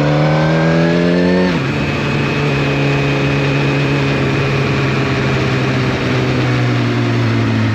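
2014 Suzuki GSX-R1000's inline-four engine under way. Its revs climb, drop abruptly about one and a half seconds in, then run on at lower, slowly falling revs.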